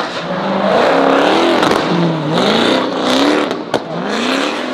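Car engine revving, its pitch swinging up and down in long sweeps several times, with a sharp click about three-quarters of the way through.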